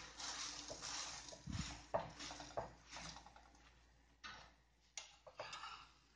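Paratha frying in ghee in a pan: a faint sizzle, with a tissue rubbing and turning it and several light knocks against the pan. It grows quieter about two-thirds of the way through, leaving only a few soft clicks.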